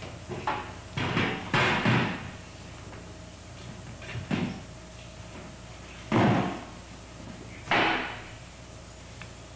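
Metal folding chairs knocking against a stage floor as they are moved and tipped: a quick run of knocks in the first two seconds, then single knocks about four, six and eight seconds in.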